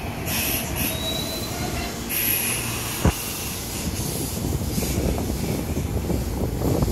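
Kintetsu limited express electric train rolling slowly through the station with a steady low rumble of wheels on rail, its wheels or brakes giving short high-pitched squeals twice in the first few seconds, and one sharp clank just after three seconds in.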